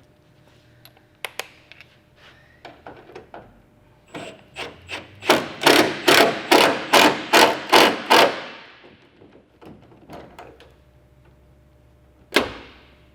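Hand tool working on a tailgate-assist bracket bolt: a run of about ten quick, sharp strokes, about three a second, in the middle, with a few lighter knocks around them and one sharp knock near the end.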